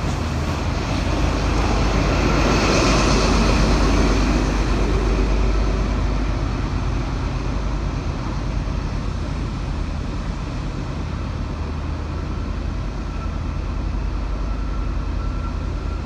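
Class 43 HST diesel power car running past at close range and away, with its engine and the train's wheels on the rails loudest a few seconds in, then settling to a steady drone. A faint thin whine comes in near the end.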